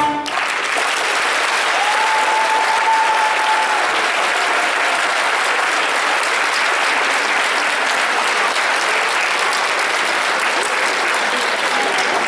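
Audience applauding steadily, starting just as the dance music stops.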